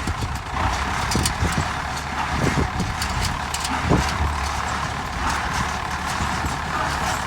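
1971 David Brown 990 tractor running with its PTO driving a New Holland 268 square baler: a steady engine rumble with the baler's mechanism clanking again and again at uneven intervals.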